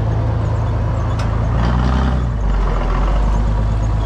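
Massey Ferguson tractor's diesel engine running steadily at idle. Its note shifts briefly about halfway through, and a single click sounds a little over a second in.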